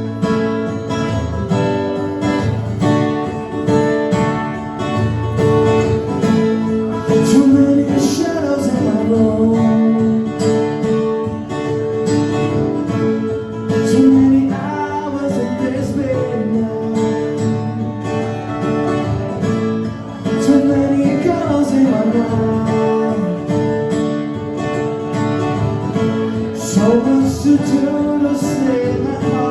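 Acoustic guitars playing sustained chords in a live acoustic band performance, with a melody line over them that slides up and down in pitch every few seconds.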